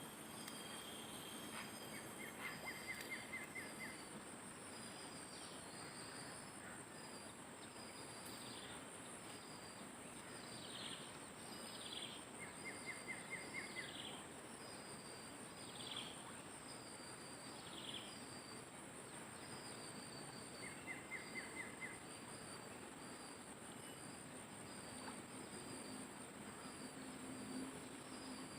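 Riverside insect chorus, a steady high-pitched drone, with birds calling over it: a short rapid trill that repeats about every eight seconds, and a run of short falling whistled notes in the middle.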